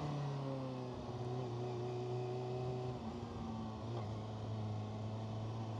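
Kawasaki ZX-6R 636's inline-four engine running at low revs under way, its note sagging slowly and stepping down lower about three seconds in.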